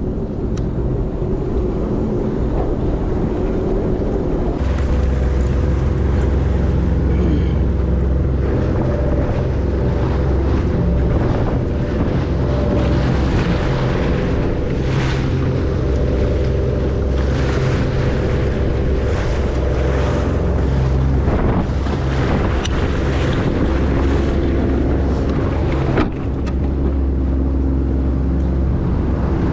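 Sea-Doo GTX Limited 300 personal watercraft's supercharged three-cylinder engine running under way, picking up about four seconds in, with wind buffeting the microphone and water splashing against the hull. A brief sharp knock near the end.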